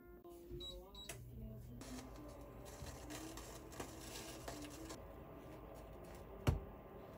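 A slice of bread handled in a dry non-stick frying pan: a soft hiss with light clicks and taps, then one louder thump about six and a half seconds in.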